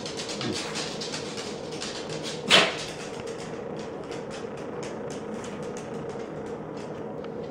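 A small dog sneezes once, short and sharp, about two and a half seconds in, the kind of sneeze this puppy gives when frustrated. Dog claws click lightly on a hardwood floor.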